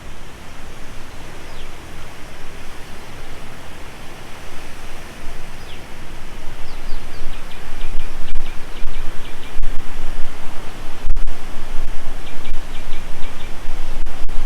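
Waterfall rushing steadily, a loud even roar of falling water that grows louder about halfway through. A bird chirps in quick series near the middle and again near the end.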